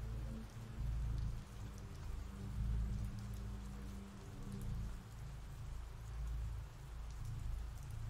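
Steady rain ambience, an even hiss of falling rain with scattered drop ticks. Beneath it runs a low hum that swells and fades every second or so.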